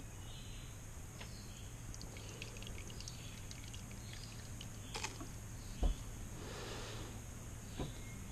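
A few light taps and clicks of a spoon against a bowl as saline solution is mixed into slime, the loudest near six seconds in, over a faint steady background hum.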